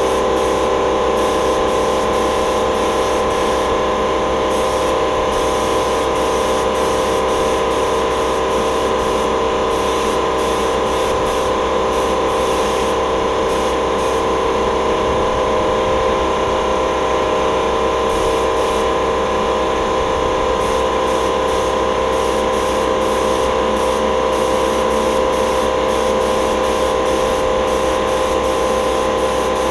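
Air spray gun hissing in repeated short bursts as gloss black paint goes onto a Ford Cruise-O-Matic automatic transmission case. A steady machine hum from the air supply runs beneath it.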